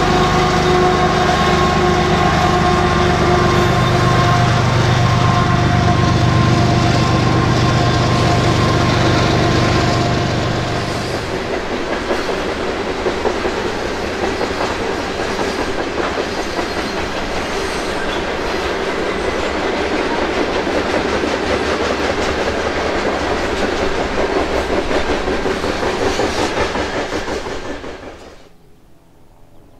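Diesel-powered freight train passing: locomotive engines running hard for the first ten seconds or so, then a long string of rail cars rolling by with wheel clatter. The sound cuts off suddenly near the end.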